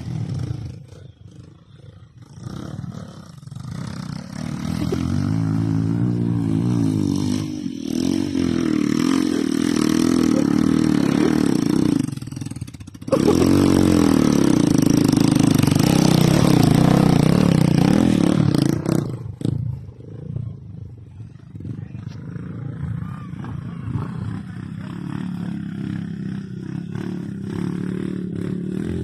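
Dirt bike engines revving as the bikes climb a steep dirt trail. One bike grows steadily louder as it comes close, drops out for a moment about twelve seconds in, then runs at its loudest for several seconds before fading. More bikes are heard revving farther off toward the end.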